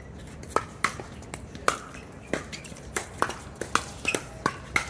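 Pickleball paddles striking a plastic pickleball in a rally, a rapid, irregular run of sharp pops, about two to three a second.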